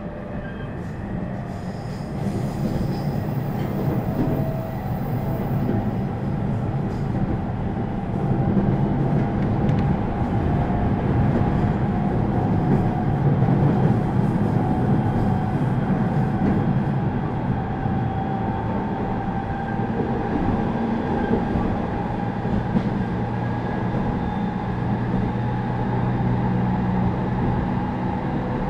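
Running noise of a JR East 209 series (2100 subseries) electric multiple unit heard from inside the passenger car: a steady rumble of wheels on rail with motor and gear hum between stations. It grows louder over the first several seconds, then holds steady.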